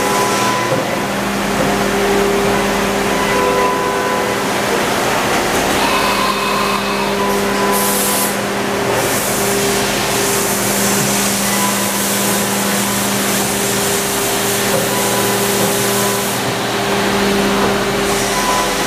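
Steady running noise of machine-shop machinery: an even motor hum with a hiss over it, and a brief burst of sharper hiss about eight seconds in.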